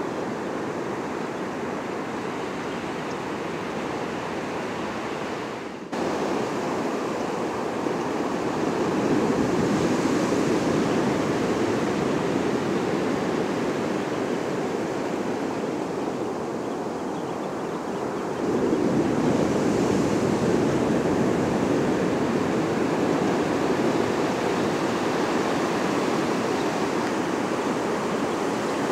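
Ocean surf breaking and washing up a sandy beach: a steady rush of water that swells louder about a third of the way in and again about two-thirds through, with a brief drop-out about six seconds in.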